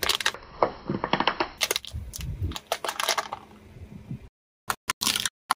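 Hard objects cracking and crunching as a car tyre rolls over them, a quick run of sharp snaps and crackles with a low rumble under part of it. The sound cuts off abruptly a few times between short bursts of cracking.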